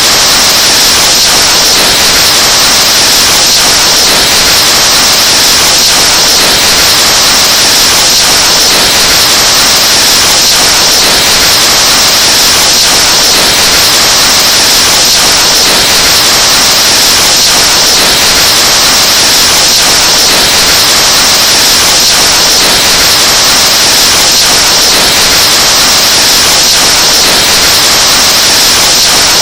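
Breath blown into a microphone, boosted into a very loud, distorted rushing hiss that holds steady without a break.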